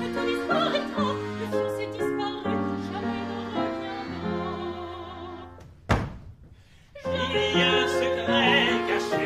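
Operatic singing with piano accompaniment, the voice held on long notes with vibrato. About six seconds in the music breaks off with a short thump and a second of near quiet, then singing and piano start again.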